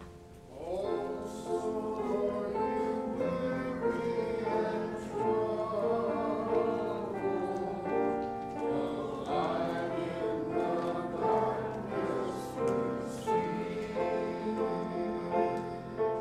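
Congregation singing a hymn with instrumental accompaniment, starting about half a second in.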